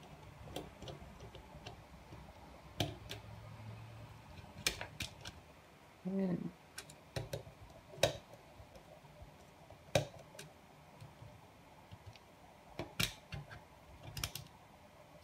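Phillips screwdriver backing out the small screws of a plastic turret dome camera's microSD compartment cover: scattered light clicks and ticks at irregular intervals, the screws jostling in place as they reach the end of their thread. A short squeak about six seconds in.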